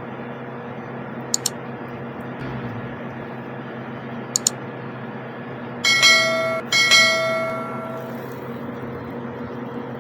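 Two bell-like chime tones at the same pitch about six seconds in, the second ringing out longer, over a steady hum with a few faint clicks.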